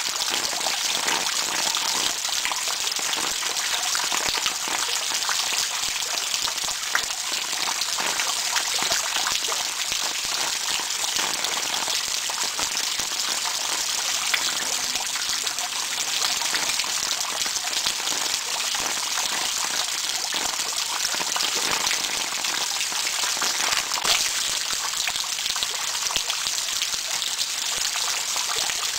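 Steady rain falling on the ground: a dense, even hiss of drops with many small separate taps.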